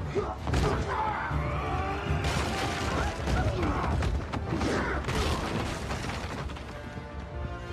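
Film fight sound: hits, scuffles and wooden furniture crashing and breaking over a dramatic music score, with sharp impacts about half a second in, a little after two seconds and around four and a half to five seconds.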